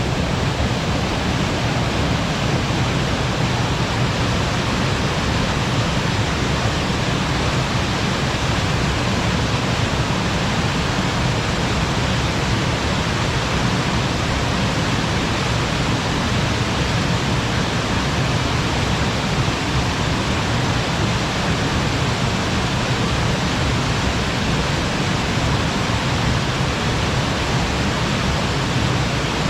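Small waterfall pouring steadily, a continuous even rush of falling water with a deep undertone.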